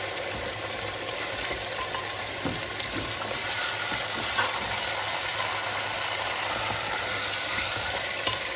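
Mutton pieces sizzling steadily as they fry in hot oil in an aluminium pressure cooker, being browned until they change colour. A spatula stirs them, with a few light knocks and scrapes against the pot.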